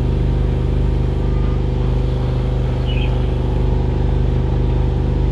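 A boat's onboard generator running at a steady speed: a constant low hum that does not change.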